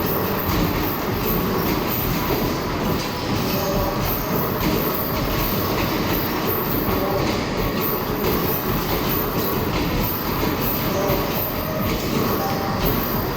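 Arcade basketball machine in play: a steady rumble of basketballs rolling back down the return ramp, with frequent small knocks of balls striking the machine, over arcade hall din.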